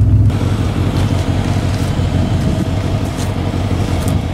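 Pickup truck engine idling with a low, evenly pulsing rumble, with wind hiss over it. Just after the start, a louder steady engine drone from the moving truck cuts off abruptly.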